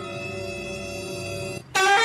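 A long held musical note, steady in pitch and rich in overtones like a reed or wind instrument; it cuts off near the end and a louder, higher note starts at once.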